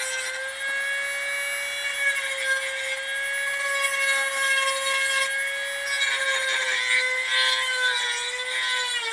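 Small electric saw cutting wood, its motor giving a steady high-pitched whine that sags slightly in pitch near the end.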